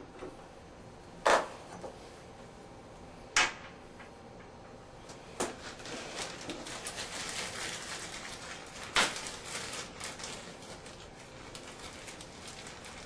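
Four sharp clicks or knocks a couple of seconds apart, with a plastic parts bag crinkling as it is handled in between.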